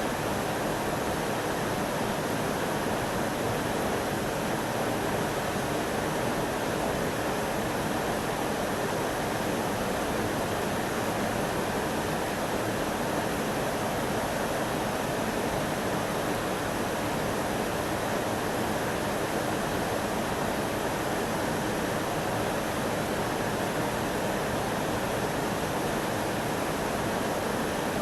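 Steady rushing of flowing river water, an even unbroken hiss with no change.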